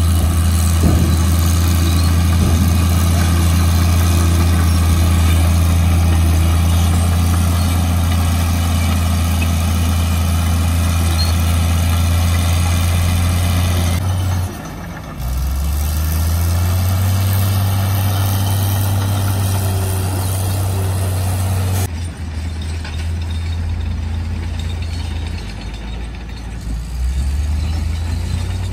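Heavy diesel engine of a loaded dump truck running with a steady low hum. About 15 seconds in the engine note dips briefly and comes back at a different pitch.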